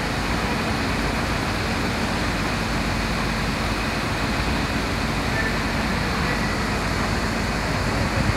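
Steady city street noise: road traffic and engines running, with no distinct events standing out.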